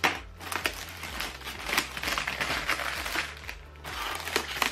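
Clear plastic wrap crinkling and crackling as it is pulled off packaging foam, with a sharp crackle at the start.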